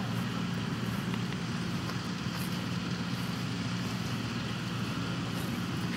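Steady low rumble with a faint hum, like vehicle traffic or an engine running nearby, holding even throughout.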